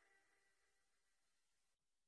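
Near silence: a gap between two pieces of background music.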